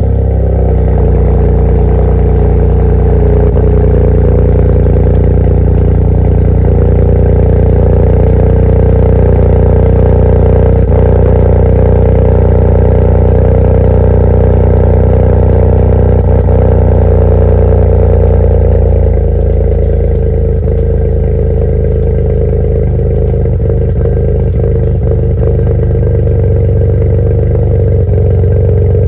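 2007 BMW 335i's N54 twin-turbo straight-six idling, heard at the exhaust tip: a steady fast idle just after starting, which drops to a lower, softer idle about 19 seconds in.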